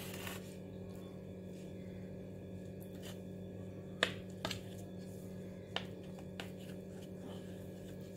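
Table knife cutting through soft steamed dhokla on a plate, its blade clicking against the plate a few times in the second half. A steady low hum runs underneath.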